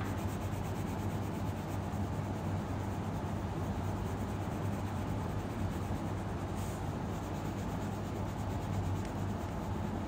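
Colored pencil scratching in repeated strokes on paper as a picture is colored in, over a steady low hum.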